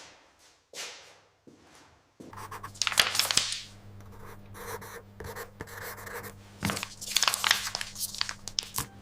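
Rustling and crackling: a few soft, separate scrapes, then from about two seconds in denser crackling over a low steady hum.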